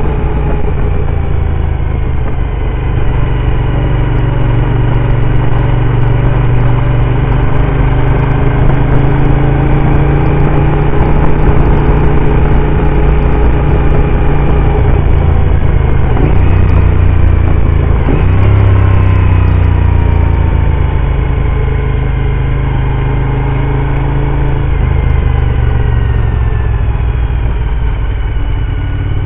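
Motorcycle engine running under way, heard from the rider's seat: a steady low rumble whose pitch slowly rises and falls with the throttle. The note jumps abruptly twice around the middle.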